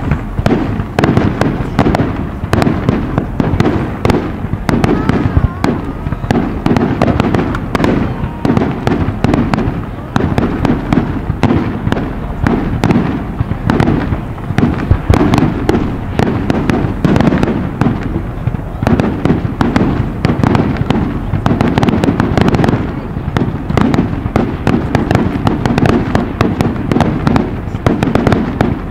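Display fireworks going off in a dense, unbroken barrage: many sharp bangs and crackles a second from launches and shell bursts.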